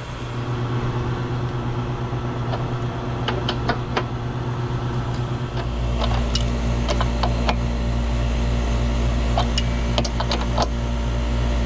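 Pliers clicking and scraping on the compressor's mounting nuts and bolts: a dozen or so short metallic clicks, unevenly spaced. Under them is a steady low machinery hum, whose deepest part grows louder about halfway through.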